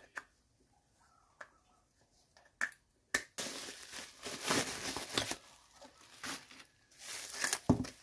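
A few light clicks as plastic-capped tie rod ends are handled, then loud crinkling and rustling of bubble wrap as a wrapped tie rod end is pulled out of it, with a sharp crack near the end.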